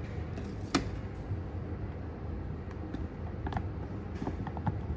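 Small clicks and taps from plastic food tubs and a spatula being handled over a steel pot, one sharp click just under a second in and a few lighter ones in the second half, over a steady low hum.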